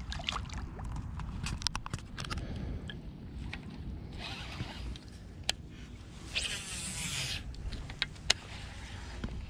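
Handling of a baitcasting rod and reel: scattered clicks and two short zipping bursts, about four and six and a half seconds in, as line is pulled off the reel, over a steady low rumble of wind on the microphone.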